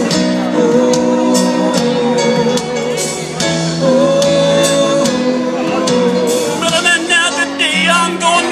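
Live rock band playing through a big PA, heard from within the audience: long held notes over regular drum hits, with a singing voice wavering in near the end.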